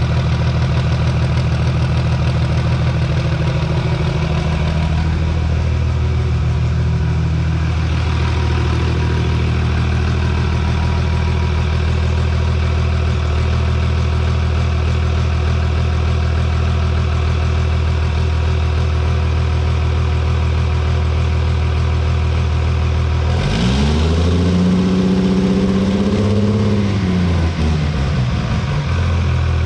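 Cummins inline-six diesel drag truck engine idling steadily, then revved once near the end, the pitch rising and falling back over a few seconds, with another rev starting just at the end. It is running on a stock tune set up for its dual injection pumps with post injection turned off, made to idle correctly.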